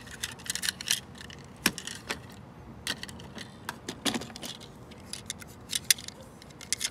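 Small die-cast and plastic toy trucks being handled: a run of sharp clicks and clacks as the toys are set down, picked up and knocked together, their wheels and parts rattling.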